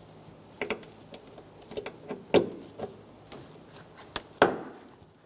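Plastic push-in trim clips being pressed back into the trunk liner: a series of sharp plastic clicks and snaps, the loudest near the end.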